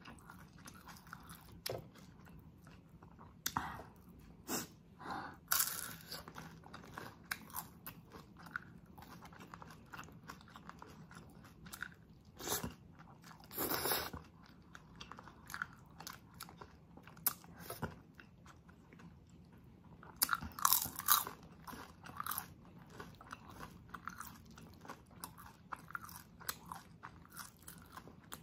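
Close-miked chewing and crunching of food, with irregular crunchy bites and mouth clicks, a few of them much louder than the rest.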